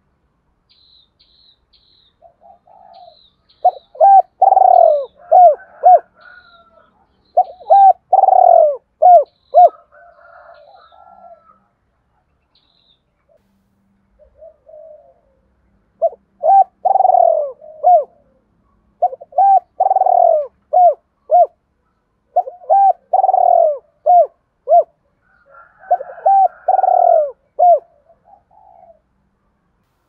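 Caged spotted dove (chim cu gáy) giving its advertising coo in about six phrases, each a quick run of short coos with one longer, lower note, as a decoy calling to wild doves. Fainter coos sound between the phrases, and faint high chirps come in the first few seconds.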